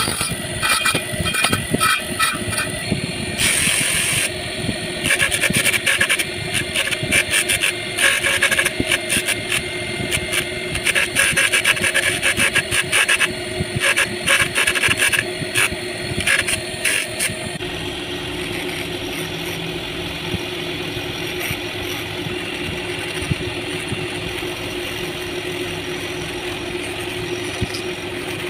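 Electric motor spinning a sanding disc, with repeated bursts of grinding as a small wooden piece is pressed against the disc to shape it. After about 17 seconds the grinding stops and only a steady motor hum remains.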